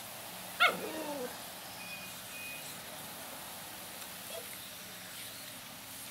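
Border Collie puppy gives one short, loud bark about half a second in, its pitch falling away, over a steady hiss of water spray.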